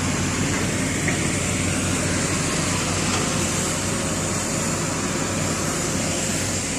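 Steady street background noise: a low, even hum of road traffic, with no single distinct event.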